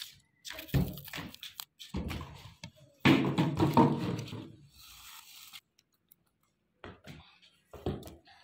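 Handling noises from preparing onions: rustling of dry onion skins and peels with a few knocks and thuds against plates, the longest burst of rustling about three seconds in.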